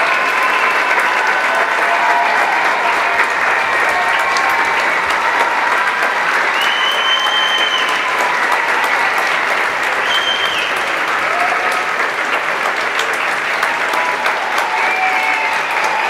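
Theatre audience applauding steadily, with cheering voices and a couple of brief high-pitched cheers in the middle.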